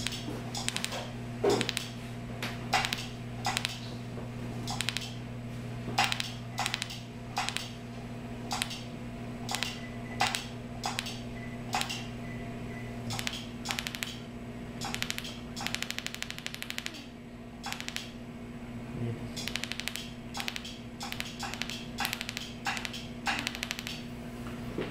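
A mole-removal laser handpiece firing in short pulses: sharp clicks about one or two a second, with quicker runs of clicks in the second half, over a steady low electrical hum.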